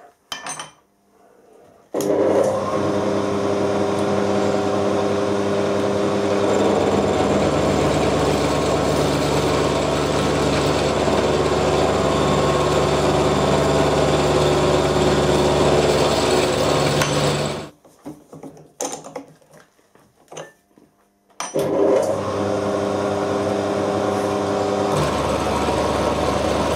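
Vertical milling machine running, its end mill cutting along the edge of an aluminium plate clamped in a vise to square it. A few metallic clicks come first. The machine starts about two seconds in with a steady hum, runs for about fifteen seconds and stops, and after a few more clicks it runs again near the end.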